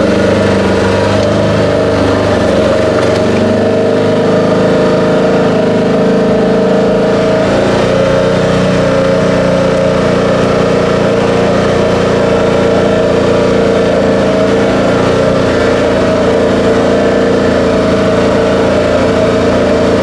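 Vehicle engine running at a steady, even speed while driving.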